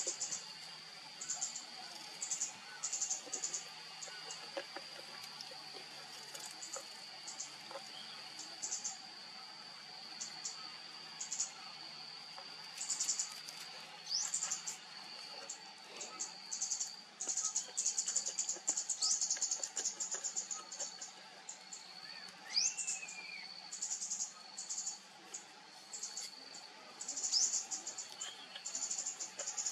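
Insects calling: a steady high-pitched drone with short bursts of rapid high chirping every second or two. A few bird calls come through, one rising-and-falling call about two-thirds of the way through.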